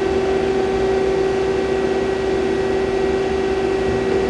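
2003 Takamaz X200 CNC turning-milling center running under power, a steady mechanical hum with a constant mid-pitched tone and no change in speed.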